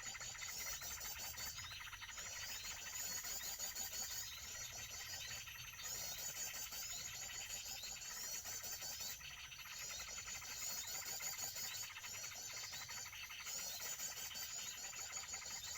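Small birds' high, rapid chirping calls in repeated phrases, each a second or two long, with short breaks between them.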